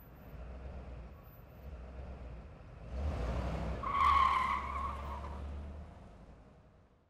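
Designed sound effect under the film's title card: a low rumble swells, a hit lands about three seconds in, then a ringing screech about four seconds in, and everything fades out.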